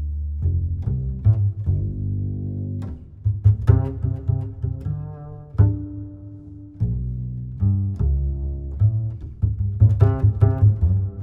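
Instrumental music: a low bass line of held notes with sharp plucked attacks, changing note every second or so.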